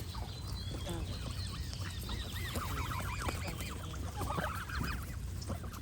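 Geese honking in runs of short, repeated nasal calls, with fainter small-bird chirps higher up and a steady low rumble underneath.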